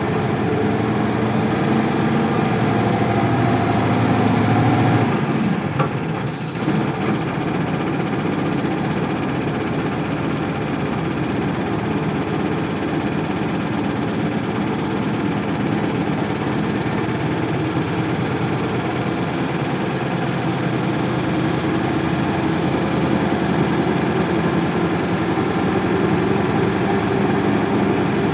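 Isuzu Cubic bus's 8PE1 V8 diesel engine running. Its pitch climbs slightly over the first few seconds, drops suddenly about five seconds in with a short click, then runs on steadily.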